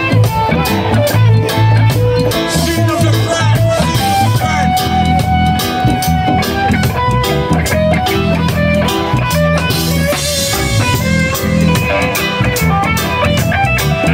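Live band playing: electric guitar and bass guitar over keyboard and a drum kit, with a steady beat.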